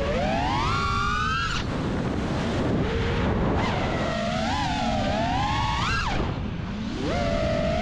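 FPV freestyle quadcopter's brushless motors (Blackbird v3 1975kv on 6S, HQ J37 props) whining as the throttle is worked. The pitch climbs steeply and then drops away abruptly about one and a half seconds in and again about six seconds in, with the whine picking up again near the end.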